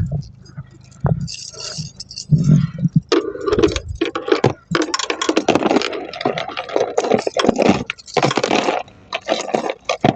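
Irregular rattling and clattering with scraping and rustling noise, many quick knocks close together.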